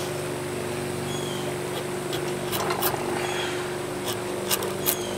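A curved steel blade scraping along a wooden axe handle held in a vise: dry, scratchy strokes and clicks, thickening from about two seconds in. A steady mechanical hum runs underneath.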